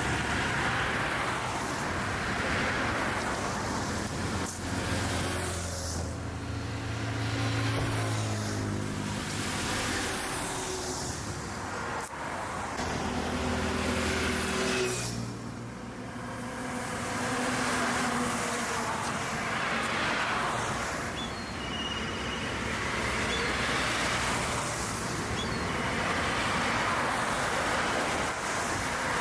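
Road traffic: vehicles passing one after another, their tyre and engine noise swelling and fading as each goes by. A low engine note, shifting in pitch, stands out from about six to fifteen seconds in.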